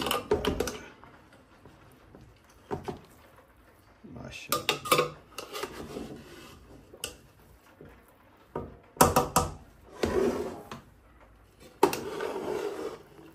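Serving spoon scraping and clanking against the inside of a cooking pot as the cooked biryani rice is stirred and mixed, in short rough bursts with sharp knocks, the sharpest about nine seconds in.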